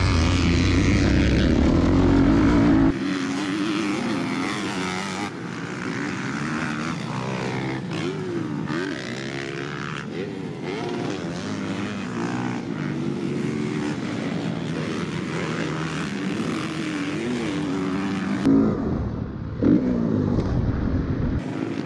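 Dirt bike engines revving up and down repeatedly as the bikes are ridden around a motocross track. The sound changes abruptly several times, as between cut-together clips.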